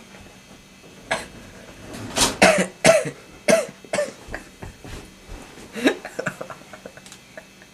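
A person coughing: a run of short, sharp coughs, the loudest coming between about two and four seconds in, one more loud cough about six seconds in, then smaller ones trailing off.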